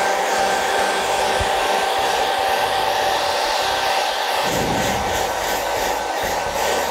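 Handheld hair dryer running continuously: a steady rush of air with a motor whine holding one pitch, blowing on wet acrylic paint to dry it. A low rumble joins the airflow about two-thirds of the way through.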